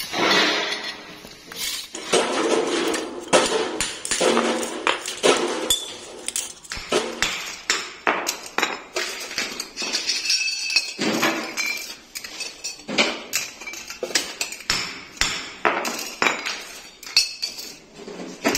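Metal air filter parts (steel wire-mesh elements, spoked end plates and tin cups) clinking and knocking together as they are handled and fitted, a long irregular run of sharp metallic clinks and knocks.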